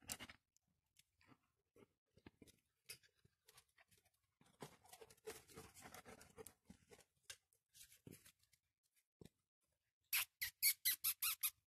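Faint scattered clicks and scratching from puppies moving about close by. About ten seconds in comes a fast, even run of loud, short squeaks, about six a second.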